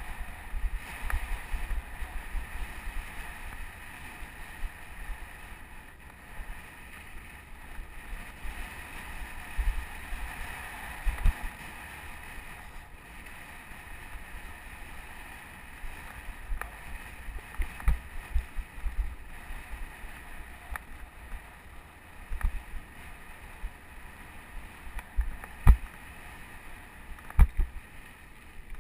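Riding a mountain bike on a dry dirt trail: wind buffeting the microphone over a steady rushing of the tyres, with scattered sharp knocks and rattles as the bike hits bumps.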